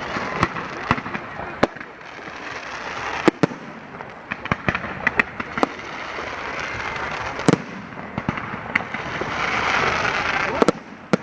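Fireworks display going off: many sharp bangs and pops at irregular intervals over a steady background rumble and hiss.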